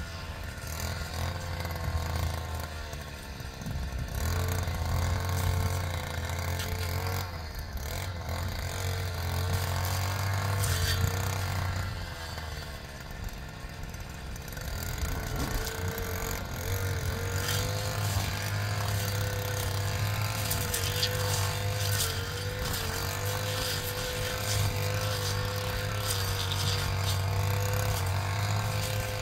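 An engine running, its speed dipping and picking back up several times in the first half, then holding steady.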